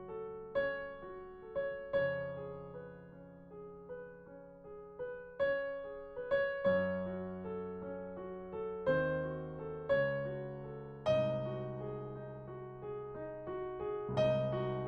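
Background music: slow, gentle piano or electric-piano playing, single notes and chords struck about once a second and left to ring.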